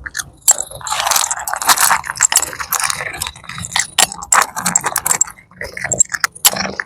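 A cat chewing crispy food close to the microphone: rapid, irregular crunching with short pauses between mouthfuls.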